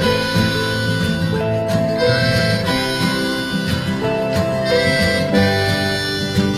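Instrumental song music with no singing: a melody of long held notes over a steady accompaniment.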